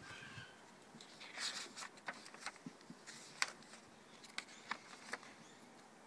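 Paper pages of a thick collaged art journal being handled and turned by hand: a soft rustle about a second and a half in, then a scatter of sharp crinkling clicks.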